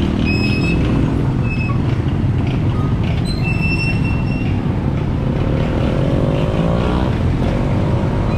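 Wind and road noise rumbling on a rider's camera microphone while cycling along a highway, broken by several short high squeals in the first half. Near the end a passing motor vehicle's engine rises in pitch.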